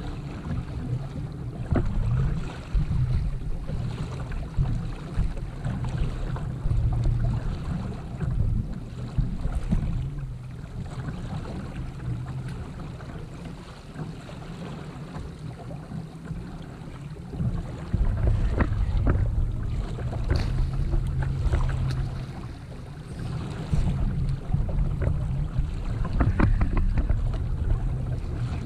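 Wind buffeting the microphone in gusty low rumbles, with water lapping against a kayak hull and a few light knocks in the second half.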